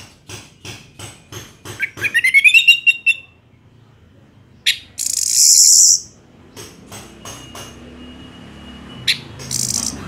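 Orange-headed thrush singing: a run of quick clicking notes speeds up into a loud, fast rising trill. Harsh, high rasping phrases follow, one about five seconds in and another near the end.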